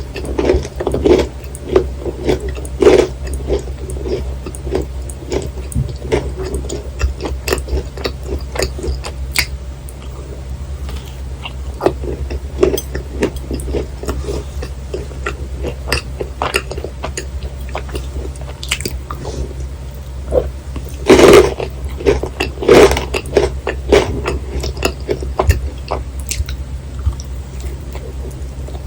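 Close-miked eating of thick-filled macarons: soft crisp bites through the shell and dense, sticky chewing. Louder bites come at the start, about three seconds in, and around twenty-one to twenty-three seconds in, over a constant low hum.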